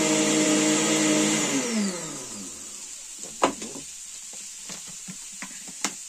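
Philips ProBlend 4 blender motor running at a steady pitch, then switched off about a second and a half in, its pitch falling as it winds down over about a second. A few sharp clicks follow.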